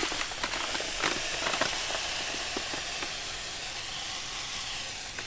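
Malt pouring from a paper bag into a cooler mash tun of hot strike water during dough-in, a steady hiss. A few crinkles of the paper bag come in the first second or so.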